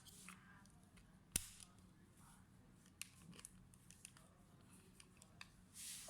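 Faint small clicks and handling sounds of laptop parts being worked on, with one sharper click about a second and a half in and a few lighter ones after.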